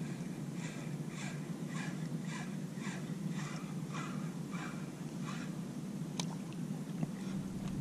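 Ozark Trail spinning reel being cranked to retrieve a lure, a soft rhythmic ticking about two to three times a second over a steady low hum; the ticking stops about five and a half seconds in, followed by a single sharp click.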